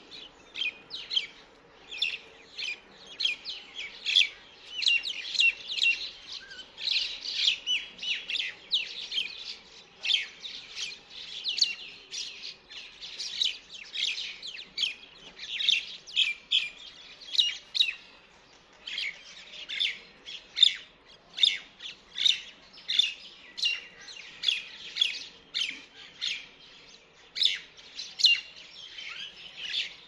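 Many small birds chirping and twittering together in a dense, unbroken chorus of short high calls, several a second, overlapping one another.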